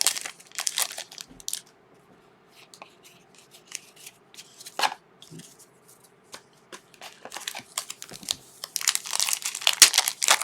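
Trading card pack wrapper crinkling and tearing, with cards being handled. A short burst of crinkling, then a quieter stretch of light clicks and one sharp snap about halfway, and dense crinkling again near the end.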